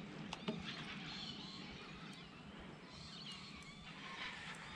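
Faint bird calls: short chirping whistles, several times, over a quiet outdoor background, with a couple of light clicks about half a second in.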